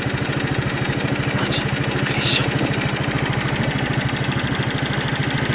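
Suzuki Choinori scooter's small air-cooled OHV single-cylinder engine idling with an even, rapid putter. Two short hissing sounds come about one and a half and two and a half seconds in.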